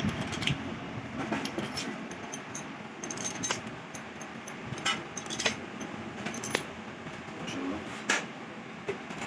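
Scattered light metallic clinks and taps, irregular and a second or so apart, as small metal parts and hand tools are handled, over a steady background hiss.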